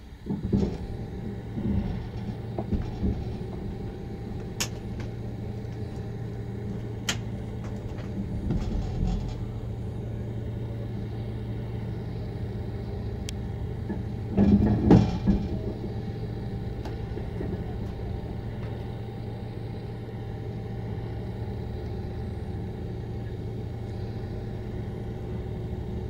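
Steady low machinery hum in a railway bogie-exchange shed during a gauge change, with scattered metallic clicks and clunks and one heavy rumbling clunk about fifteen seconds in as the passenger cars shift.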